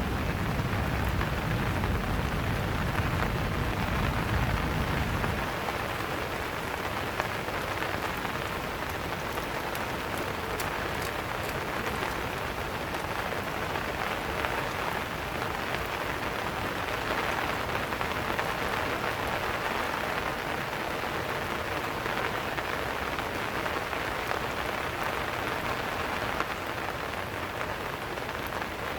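Steady rain falling and pattering on surfaces, with a low rumble underneath for the first five seconds that then drops away.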